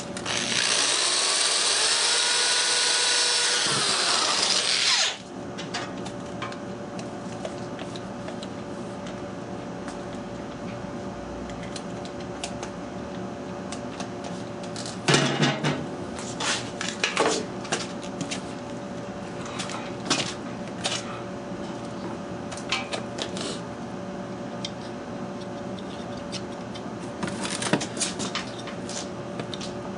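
Electric drill spinning a finish nail used as a bit, drilling a centre hole through 1/8-inch clear acrylic sheet. It runs for about five seconds, its pitch rising and then falling away as it stops. After that come a few scattered knocks and clicks.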